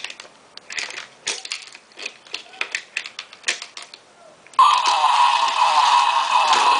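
Small plastic toy cars and track pieces clicking and clattering, a run of separate sharp knocks. About two-thirds of the way in, a loud steady whirring starts and keeps going, louder than the clicks.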